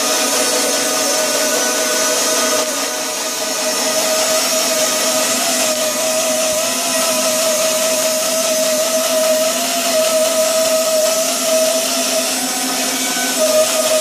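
Band sawmill cutting through an old timber beam: a steady, loud whine from the blade and drive with a hiss of sawing over it.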